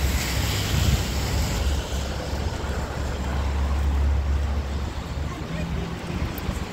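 Rainy city street ambience: a steady hiss of rain and wet asphalt over a low rumble that eases off about five seconds in.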